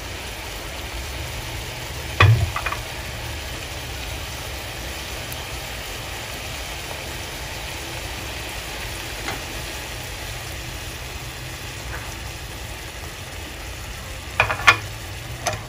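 A pan of climbing perch braised down to a thick caramel sauce, simmering and sizzling on the stove. A short knock comes about two seconds in and two more near the end.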